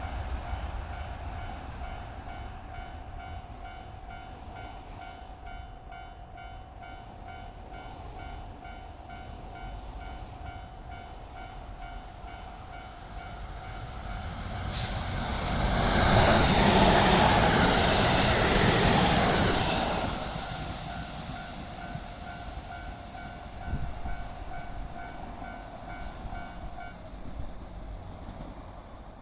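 Japanese level-crossing warning bell dinging over and over while a train passes over the crossing; the passing train is loudest for about five seconds in the middle. The bell stops near the end.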